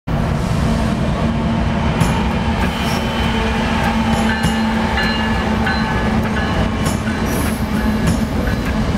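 Norfolk Southern diesel freight locomotives passing close by: a steady, loud engine rumble with a droning tone, and short high squeals and clicks scattered through it.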